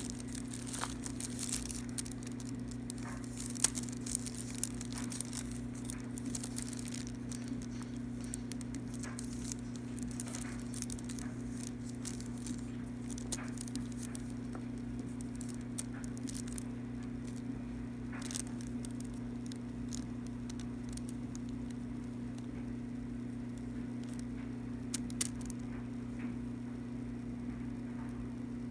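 Steady low hum with scattered small clicks and crackles, the sharpest a few seconds in.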